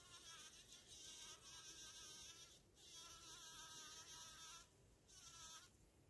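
Bumble bee buzz-pollinating inside a flower: three bouts of higher-pitched buzzing, the last one short. The bee vibrates its flight muscles to shake pollen loose from the flower.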